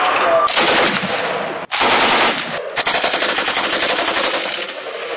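Rapid automatic gunfire from an AK-pattern rifle in long bursts, with two brief breaks, about a second and a half and two and a half seconds in.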